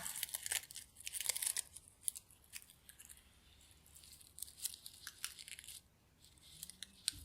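Clothes being handled and rustled close to the microphone: a dense crackle for about the first two seconds, then sparse light ticks and rustles.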